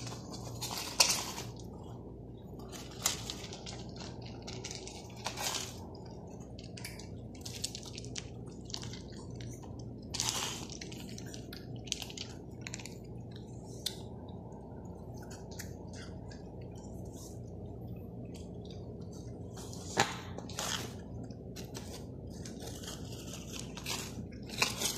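Several long-haired cats eating close up: scattered short chewing and clicking sounds, over a steady low hum.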